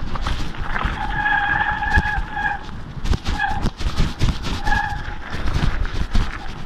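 Mountain bike rolling downhill over a rough gravel track, with tyre rumble, rattling and wind on the microphone. The brakes squeal in steady high tones as the rider brakes, the longest from about a second in for nearly two seconds, then twice more briefly.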